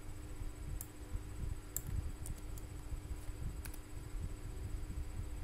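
A few faint, scattered clicks from a computer mouse and keyboard as a search query is pasted and entered, over a low steady hum.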